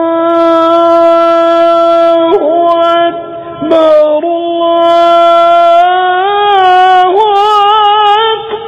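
A man chanting the adhan, the Islamic call to prayer, in long drawn-out held notes with wavering ornaments. There is a short break a little past the middle, and the pitch steps up to a higher note near the end.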